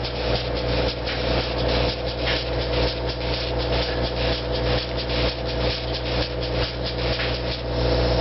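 An engine running steadily, with irregular scraping noises over it that stop near the end.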